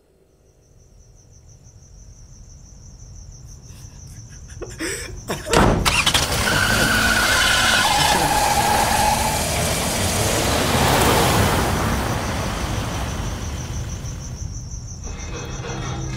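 Film sound effects: crickets chirping as a truck engine draws near and grows louder, then a sudden loud crash about five seconds in as the truck smashes into a wooden restroom building. The engine runs loudly for several seconds after the crash, with two short squeals, and the crickets return near the end.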